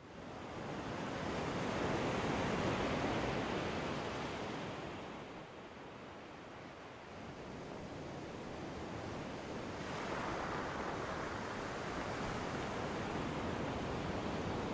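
Ocean surf: a wave builds and washes out, and the surf rises again about ten seconds in.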